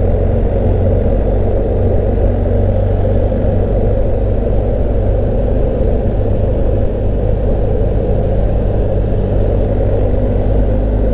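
BMW GS Adventure motorcycle's boxer-twin engine running at a steady cruise, with a constant low drone under wind and road noise.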